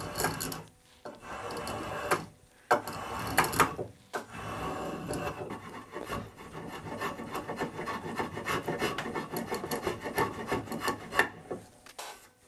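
Flat spokeshave scraping along the curved edge of a wooden chair rocker: a few longer strokes, then a run of quick short strokes. It is fairing the curve into the old edge, cutting through the existing finish.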